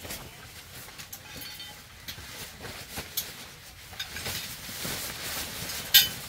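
Objects being handled: scattered light clicks and knocks, with one sharp, loud knock near the end.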